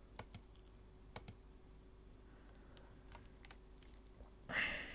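Faint clicks of a computer mouse and keyboard, a few in the first second and a half and scattered ticks after. A short breathy rush of noise comes near the end.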